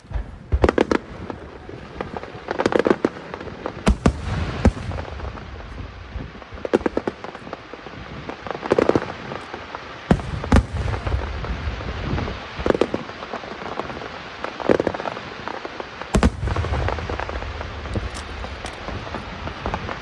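Large aerial fireworks shells bursting in a steady barrage: sharp bangs every second or so, with crackling clusters several times.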